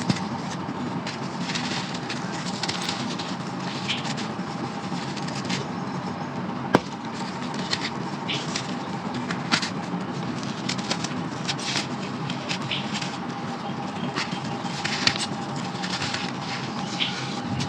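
Crunchy brown sand being crumbled and crushed in a clay pot: irregular gritty crunches and crackles, with one sharp click about seven seconds in. A faint steady hum runs underneath.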